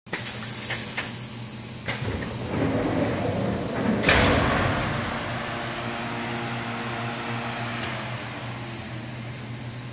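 Thermoforming (vacuum-forming) machine running with a steady hum, as its control-panel buttons are pressed to start a cycle, giving sharp clicks about one and two seconds in. Its forming station then moves with a loud rushing hiss peaking around four seconds in, before settling back to the steady hum.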